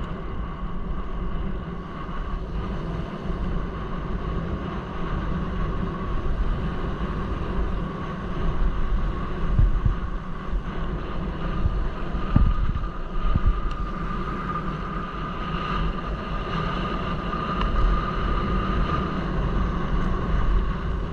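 Wind buffeting the microphone of a mountain bike rolling downhill, with steady tyre rumble over tarmac and then gravel. A couple of short knocks come near the middle.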